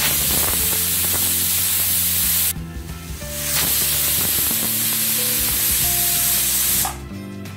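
Steam hissing out of a pressure cooker's vent in two loud bursts, about two and a half and three and a half seconds long, the second while the whistle weight is lifted off to let the pressure out.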